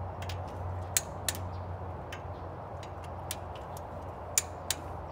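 Click-type torque wrench clicking as it reaches set torque on the intake manifold bolts: two sharp clicks about a third of a second apart about a second in, and another pair near the end, over a steady low hum.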